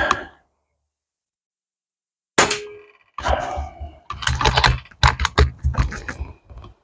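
PCP air rifle (Armex Reaper 10) being shot and worked: a sharp report at the very start, then a metallic clank with a short ring about two and a half seconds in, followed by a quick string of clicks and knocks from the action and handling.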